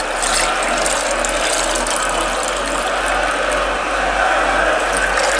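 Juice being poured from a plastic container into a glass mug, a steady stream splashing and gurgling into the liquid.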